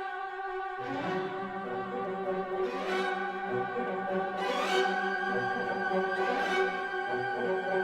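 Background instrumental music of bowed strings: a violin melody over lower strings that come in about a second in, with a gentle repeating pulse.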